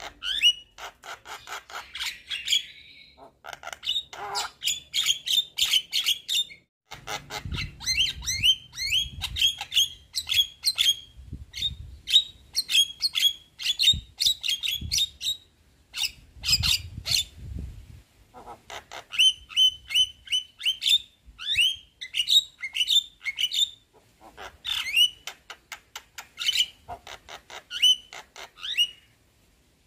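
Javan myna chattering in rapid runs of short, quickly sweeping squeaky notes, with brief pauses between bursts.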